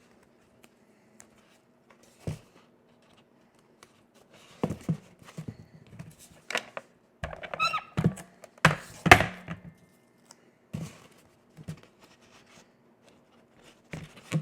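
Hands handling and pressing cardstock pieces on a work table: a scattering of short knocks and taps, one with a brief squeak, the loudest about nine seconds in.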